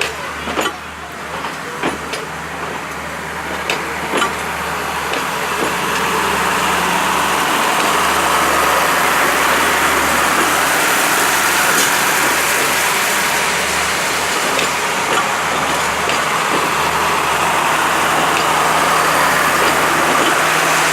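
A heavy vehicle engine running steadily, growing louder over the first six seconds and then holding, with a few sharp clicks in the first seconds.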